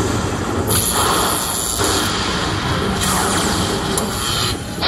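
Lightning Link Magic Pearl slot machine playing its win-celebration sound effects as the bonus win counts up: loud, noisy blocks of sound that change abruptly about every second.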